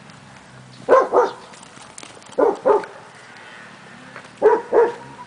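Cardigan Welsh Corgi barking: three quick pairs of short barks, spaced about a second and a half apart.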